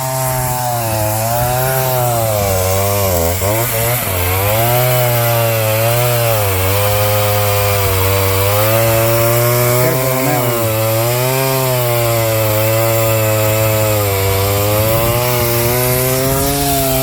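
Chainsaw cutting wood, its pitch wavering up and down as it bites into the timber and frees up again.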